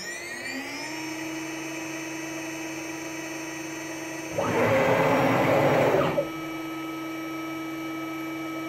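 JGL 80-2.2kW ATC CNC spindle motor finishing its spin-up in the first second, then running at a steady speed with a high, even whine. About four seconds in, a louder noise covers it for about two seconds, then the steady whine carries on.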